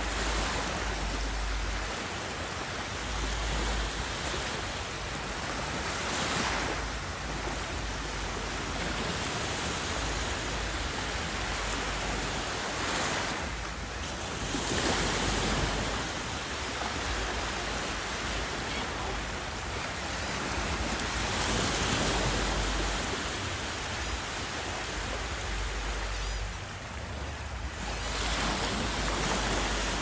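Small waves washing up on a sandy beach, a steady rush of surf that swells and eases every few seconds, with wind buffeting the microphone.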